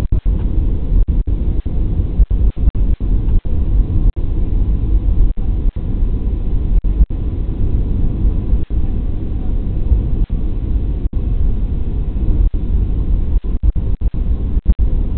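Airbus A320 heard from inside the cabin as it rolls along the runway: a steady, loud low rumble of the jet engines and the wheels, with many brief dropouts in the recording.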